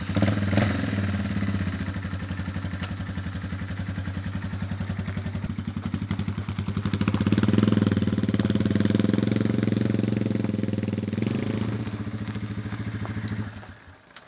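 Small engine running at an even idle with regular firing pulses. It speeds up and gets louder for a few seconds in the middle, then shuts off near the end.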